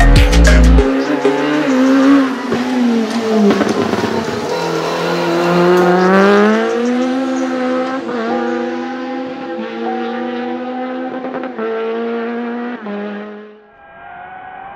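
Rally car engine accelerating hard on a gravel stage, its pitch climbing and dropping back at each gear change, after a music track cuts off about a second in.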